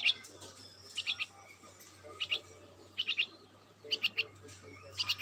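A bird chirping: quick high notes in clusters of two or three, repeated about once a second.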